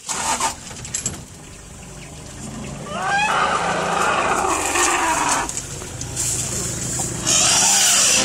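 African elephants trumpeting and roaring loudly around a mating pair, the excited chorus of calls known as mating pandemonium. A sharp rising trumpet about three seconds in leads into long, rough roars, and a loud rushing hiss comes near the end.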